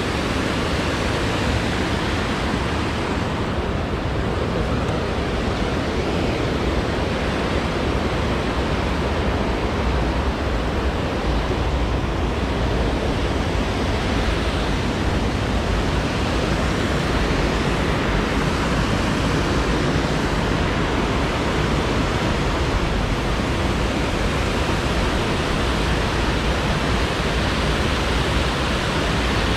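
Water pouring over a long, low weir at the lake's outlet and rushing into the channel below: a steady, even rush with no change throughout.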